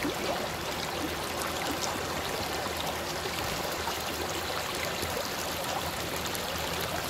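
Shallow stream flowing over stones, a steady rushing of water heard close up.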